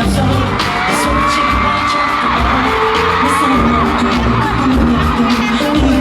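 A male singer performing a pop song live over a loud backing track with sharp drum hits, while the concert audience whoops and screams.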